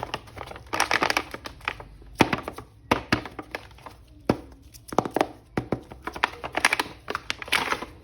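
Plastic packaging crinkling, with sharp clicks and light knocks as a toy action figure is unwrapped and handled.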